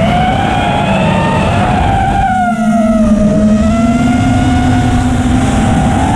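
FPV racing quadcopter's brushless motors and propellers whining, recorded by the onboard camera, the pitch rising and falling with throttle through flips and rolls, over heavy wind and vibration rumble on the camera microphone.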